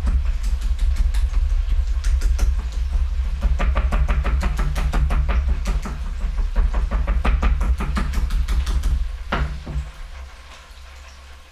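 Metal-headed meat mallet pounding a boneless chicken thigh flat on a wooden cutting board: a fast run of heavy thuds, about four or five a second, that stops about nine seconds in.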